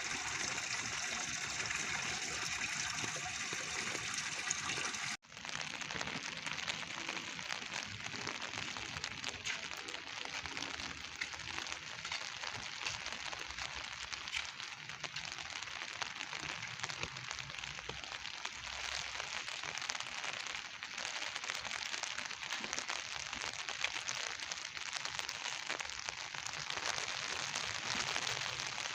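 Steady rain, a continuous hiss of falling and running water. It drops out for an instant about five seconds in.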